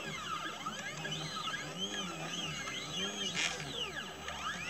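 Stepper motors of a CNC 2418 laser engraver whining, their pitch rising and falling in quick arcs as the head traces curved lines. There is a short click about three and a half seconds in.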